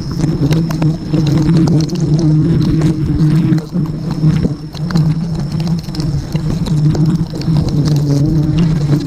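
Dense buzzing of a mass of honeybees close to the microphone, a low hum that swells and fades unevenly as the bees fly around the disturbed nest.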